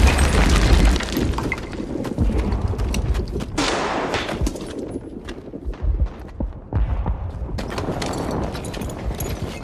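Film battle soundtrack: a heavy explosion at the start throwing up debris. It is followed by a stream of rifle and machine-gun fire, with further blasts every second or two.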